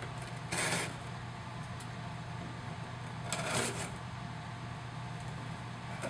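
Cardboard shipping box being opened by hand: two short rustling, scraping bursts of cardboard and paper, one about half a second in and another a little past three seconds.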